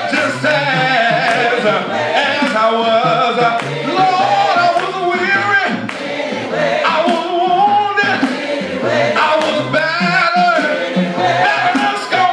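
Live gospel praise singing: a man leads through a microphone with other voices joining in, over a steady beat of sharp hits.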